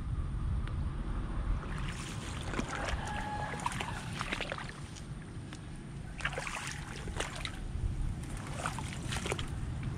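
Wind buffeting the microphone in a steady low rumble, with bursts of water sloshing and splashing around the legs of someone wading in a shallow, weedy pond, about two, six and nine seconds in.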